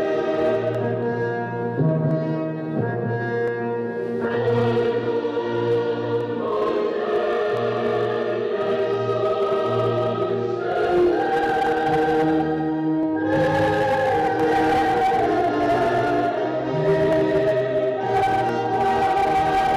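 A choir singing in long held chords.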